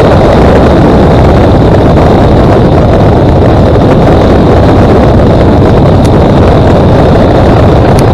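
Thatcher CX5 light aircraft rolling out on the runway after landing: its engine and propeller run steadily under heavy wind rush on the underbelly-mounted action camera's microphone.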